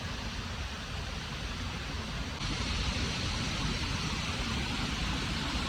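Waterfall rushing: a steady, even noise with a low rumble underneath, its hiss turning brighter and louder about two and a half seconds in.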